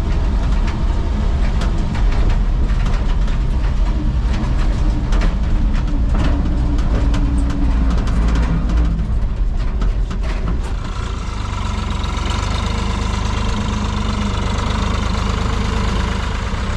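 Old Chevrolet Maple Leaf truck engine running, with frequent clunks and rattles for the first ten seconds or so. It then settles into a steady idle.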